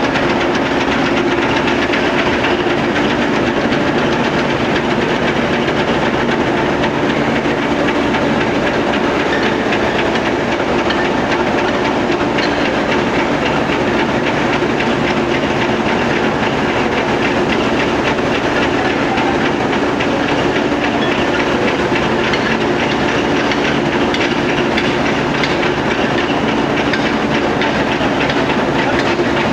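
Steady, loud running noise of forging-line machinery: a continuous hiss and hum with a low drone underneath, and no distinct hammer or press blows.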